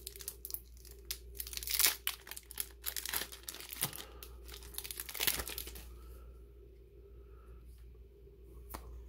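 A foil trading-card booster pack being torn open and its crinkly wrapper handled as the cards are pulled out: a dense run of tearing and crackling over the first five or six seconds, then it goes quieter.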